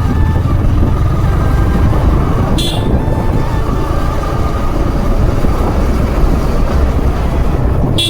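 Steady low rumble of wind and road noise on a moving motorbike in traffic. A vehicle horn gives one short toot about two and a half seconds in.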